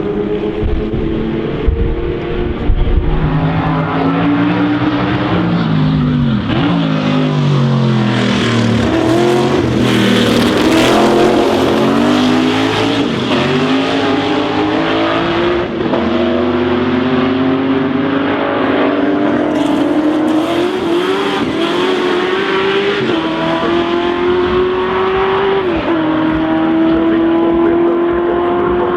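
Historic racing car engines at full throttle, several cars passing one after another with their notes rising, falling and crossing. Later one engine climbs in pitch and drops back three or four times as it shifts up through the gears. A couple of sharp cracks sound about two seconds in.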